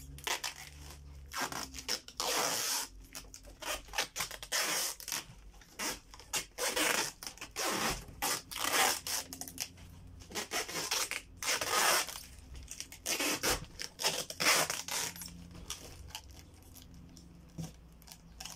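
Packing tape being pulled off its roll in repeated rasping strips and pressed onto a cardboard box, the pulls coming irregularly and thinning out near the end.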